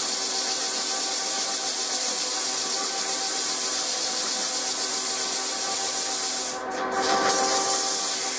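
Metal-turning lathe running under power, its tool fed by hand into the turning work, giving a steady scraping hiss over the steady hum and whine of the lathe's motor and gearing. The sound dips briefly and changes about six and a half seconds in.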